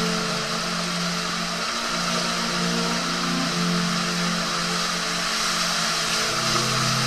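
Water rushing through an enclosed tube waterslide as a rider slides down it, a loud, steady, unbroken rush.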